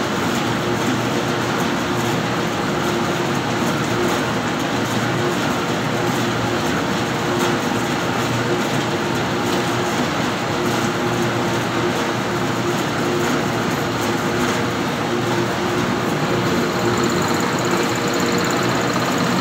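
Cottonseed oil mill machinery running steadily: a continuous mechanical noise with a steady hum.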